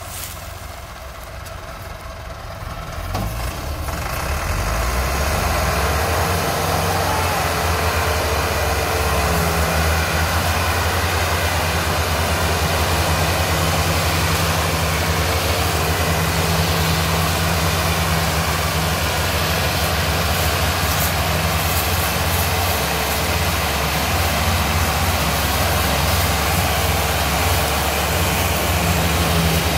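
Massey Ferguson 385 tractor diesel engines, two working in tandem, running hard under heavy load to haul a loaded sugarcane trolley. They pick up and grow louder about four seconds in, then hold a steady heavy note.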